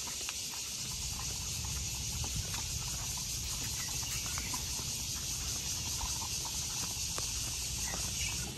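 Steady high-pitched buzzing chorus of cicadas in roadside trees over a low road rumble, with faint scattered ticks.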